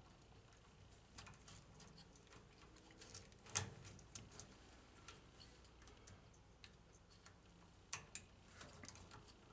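Scattered small clicks and taps of parts being handled during reassembly of a vending machine's motor and rotor, with a sharper click about three and a half seconds in and another near eight seconds.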